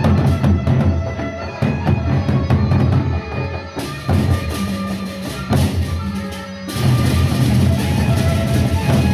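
Gendang beleq ensemble playing: the big Sasak double-headed barrel drums beat a repeated rhythm, with tuned gongs ringing steady tones and sharp cymbal-like strikes over them.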